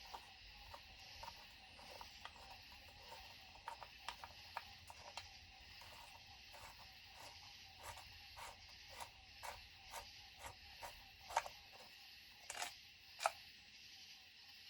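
Faint, scattered clicks and light taps of small metal chainsaw parts and hand tools being handled during teardown, over a steady background hiss, with a few sharper taps near the end.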